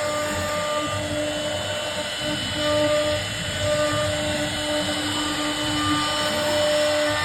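CNC router spindle running at a steady high speed with a constant whine, its bit cutting into a wooden door panel with a rough, even grinding noise underneath.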